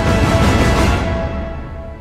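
Background music with held tones, fading out over the second half.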